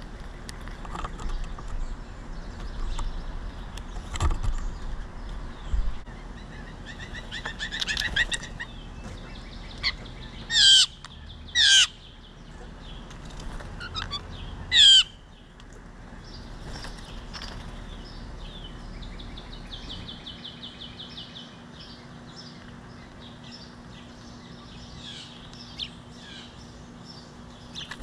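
Blue jays calling at a backyard feeder: three loud, harsh calls close together near the middle, among softer bird chirps.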